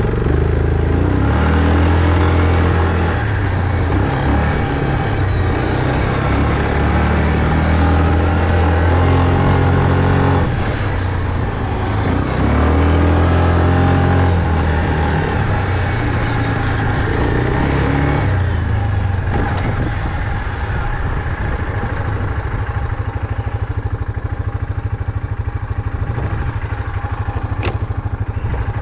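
Engine of a farm vehicle running loudly as it drives, its pitch rising and dropping in steps over the first two thirds and holding steadier near the end.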